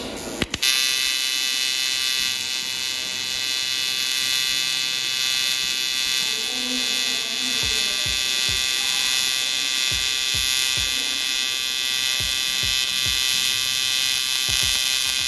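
Square-wave AC TIG welding arc from a TIG-200ADP inverter welder in 2T mode without pulse: a couple of sharp clicks as the arc strikes about half a second in, then a steady, harsh electric buzz with many even overtones that cuts off suddenly near the end.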